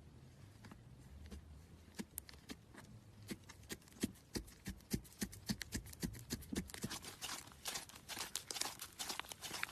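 Slime being worked by hand, giving a run of sticky clicks and pops. They start sparse about two seconds in and grow quicker and louder toward the end.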